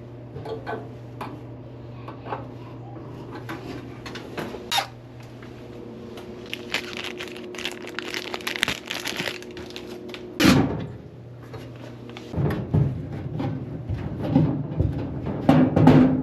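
LG clothes dryer running: a steady low hum with scattered clicks and knocks, a loud thump about ten seconds in, and a run of heavy thumps and knocks near the end.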